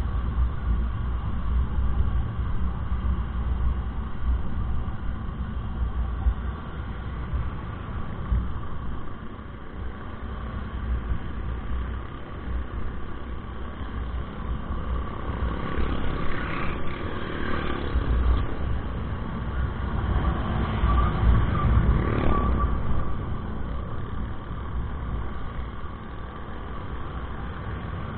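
Riding a Honda Click 125i scooter, heard through an action camera: a steady wind rumble on the microphone over the scooter's engine and tyre noise. The sound swells louder twice, around 16 and 22 seconds in.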